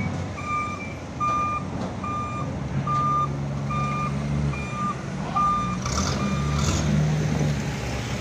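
Komatsu propane-powered forklift's reversing alarm beeping, about one and a half beeps a second, over its engine running as it backs up; the beeping stops about five and a half seconds in. Two short hisses follow near the end.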